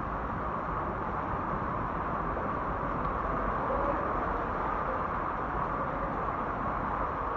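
Floodwater rushing and pouring into a flooded subway station, a steady unbroken roar of water.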